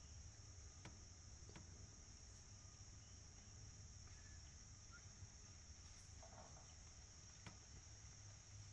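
Near silence, with a faint, steady high-pitched insect chorus and a few faint ticks.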